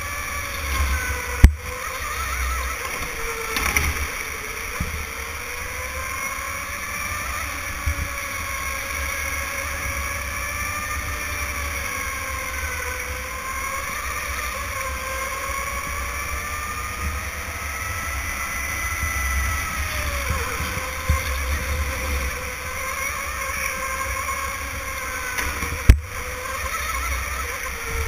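Electric go-kart motor whining as the kart laps, its pitch rising and falling with speed through the corners, over a low rumble. A sharp knock sounds about a second and a half in, and another near the end.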